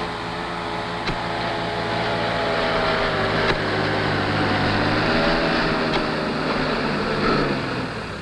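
Tractor engine running steadily, growing louder toward the middle and easing off near the end.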